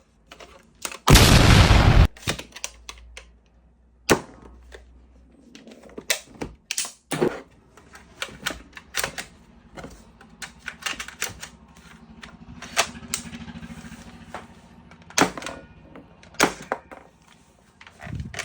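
Loud rushing burst lasting about a second, starting about a second in, then many scattered sharp clicks and knocks of hard plastic toy-gun parts being handled.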